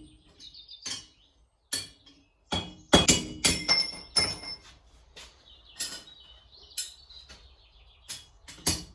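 Hand hammer blows on a hot steel bolt over an anvil, driving it through a punched hole in a steel plate: about fifteen irregular strikes, some with a short metallic ring, the heaviest and quickest a few seconds in.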